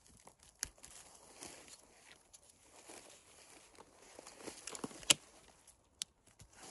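Rustling of moss, leaves and dry twigs under a gloved hand picking mushrooms from the forest floor, with scattered small crackles. A single sharp snap about five seconds in is the loudest sound.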